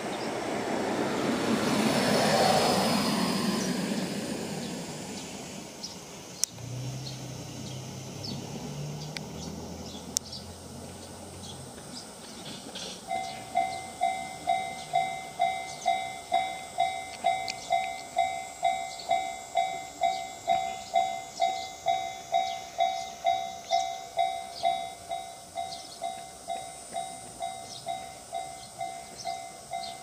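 A train passes, its rush rising to a peak a couple of seconds in and then fading away. About thirteen seconds in, a level-crossing warning bell starts ringing, with an even electronic ding about twice a second.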